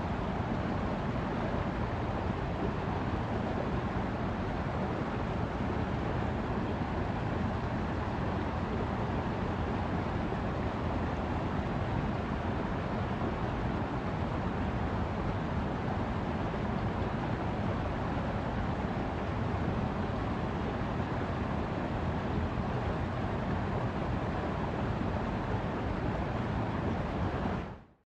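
Mountain river rushing over rocks: a steady, even noise of flowing white water that fades out at the very end.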